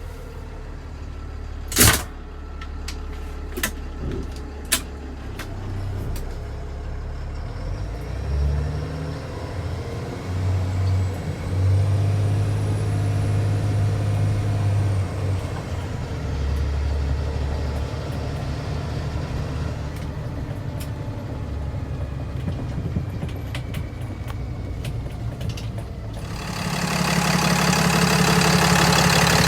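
A Peterbilt 330 medium-duty truck's diesel engine idling, with a few sharp clicks and one loud knock about two seconds in. Near the end a loud, steady rushing noise comes in over the engine.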